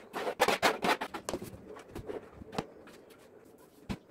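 Plastic spoon scraping and cucumber slices dropping into a clear plastic food container, a quick run of clatters, then a few separate knocks of plastic containers being handled and set down.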